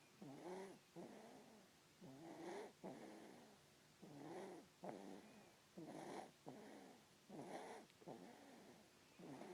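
A baby snoring in its sleep with quick, regular breathing. There are about five breaths, each a pitched, wavering snore on the breath in followed by a shorter one on the breath out, roughly one breath every second and a half to two seconds.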